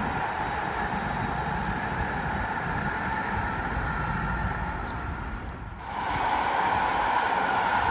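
VTA light rail train running along elevated track: a steady rumble with a constant whine over it and rough wind-like buffeting low down. The sound dips briefly just before six seconds, then comes back a little louder.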